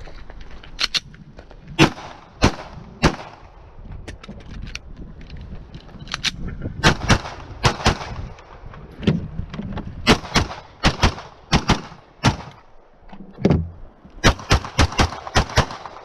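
Glock 34 9 mm pistol firing rapid shots, singly and in quick runs of two to six, with short pauses between runs. About twenty shots in all, with the densest run near the end.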